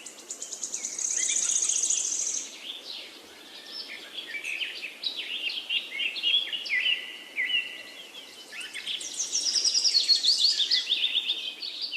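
Several small birds chirping and singing, with many short calls and fast high trills about a second in and again near the end.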